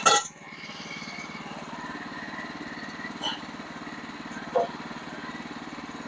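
Band sawmill's small engine running steadily, not cutting, with a sharp knock at the very start and smaller knocks about three and four and a half seconds in.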